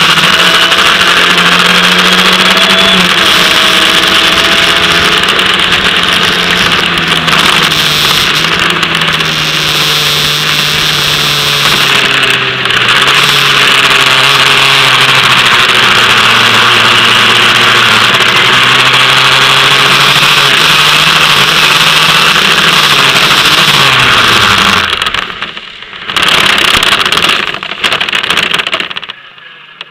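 Formula Ford single-seater's engine running hard, heard onboard over a heavy hiss of wind and spray. About 24 seconds in the engine note drops and dies away as the car goes off into the wet grass run-off, followed by a few seconds of rushing noise with no engine, then it goes quiet as the car stops.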